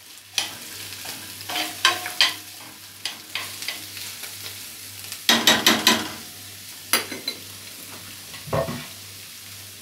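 Beef and chopped onion sizzling as they fry in a deep pan. A metal utensil stirring them scrapes and clicks against the pan in bunches, loudest about halfway through.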